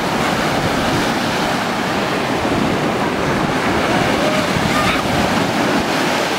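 Ocean surf breaking and washing through the shallows: a steady, loud rushing of waves and foam.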